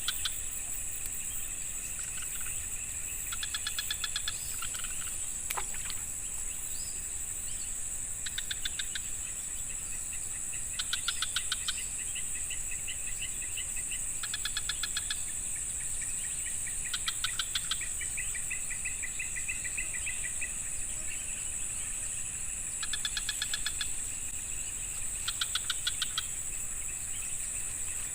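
Insect and bird chorus: a steady high-pitched insect drone, with short trains of rapid pulsing calls every two to three seconds and a bird warbling through the middle.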